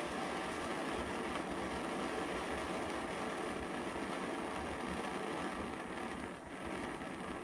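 Steady rushing hiss from a tool heat-shrinking a warped steel body panel to take out oil-canning, with a faint steady high tone and a short dip about six seconds in.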